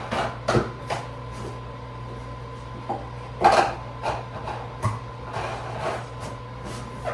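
Scattered knocks, clicks and rattles of sofa parts being handled and fitted during assembly, the loudest knock about three and a half seconds in, over a steady low hum.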